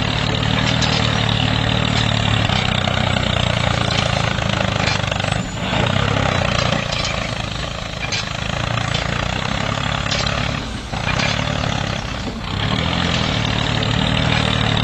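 Mini tractor's engine running steadily at an even low pitch, dipping briefly about three times.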